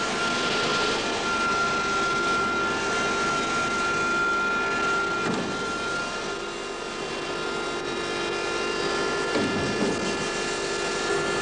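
Jet aircraft engine running: a steady whine with a high tone that fades about halfway through, over a lower hum.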